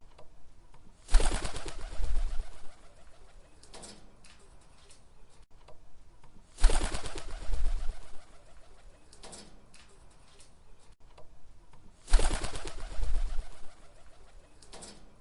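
Pigeon wings clapping and flapping in three bursts, each starting suddenly and lasting about a second and a half, about five and a half seconds apart. Fainter short sounds come between the bursts.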